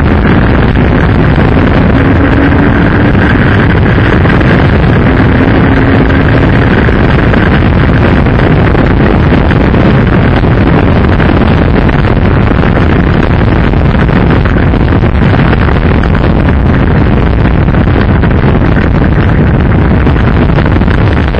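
Loud, steady wind blast on a helmet-camera microphone from a motorcycle riding at highway speed, overloading the recording.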